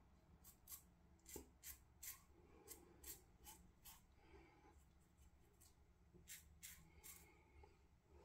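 Faint scraping of a Parker semi-slant double-edge safety razor cutting lathered stubble on the upper lip in short, quick strokes. A run of strokes comes first, then a pause, then a few more strokes a little past the middle.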